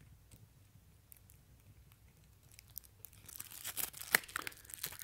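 Handling noise from a reading-glasses retail package: faint at first, then from about three seconds in a run of short crinkling, scratchy clicks of card and plastic being handled, loudest just after four seconds.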